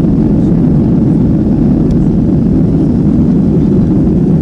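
Airliner cabin noise during the climb after takeoff: the jet engines and rushing air heard from inside the cabin as a loud, steady, deep noise.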